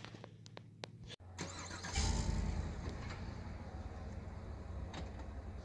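Pickup truck's 6.2-litre V8 engine running with a low, steady rumble as it tows the travel trailer forward onto the leveling blocks. The rumble comes in suddenly about two seconds in, loudest at first, after a few faint clicks.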